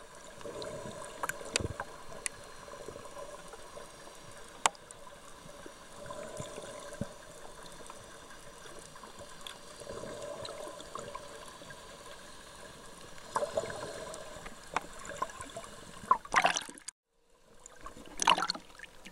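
Underwater sound heard through a camera's waterproof housing: muffled water noise with scattered sharp clicks and a few swells every few seconds. Near the end come two louder rushes of noise on either side of a brief drop to silence.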